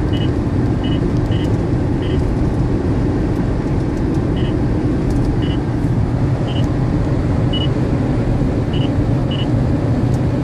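A radar detector sounding short, high alert beeps, unevenly spaced about half a second to a second apart, as it picks up Ka-band police radar near 34.7 GHz. Under them is steady road noise inside a moving car.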